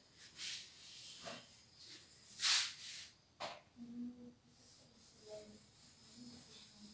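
A whiteboard duster wiping across a whiteboard, heard as a few short, faint swishes, the strongest about two and a half seconds in.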